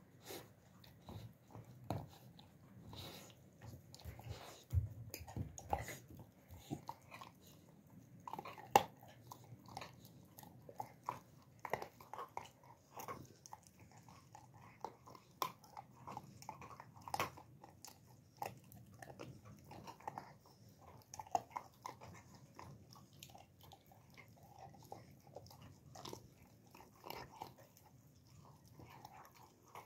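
Alabai (Central Asian Shepherd Dog) puppy chewing and gnawing a piece of raw meat: irregular crunches and clicks of its jaws, one sharper crunch about nine seconds in.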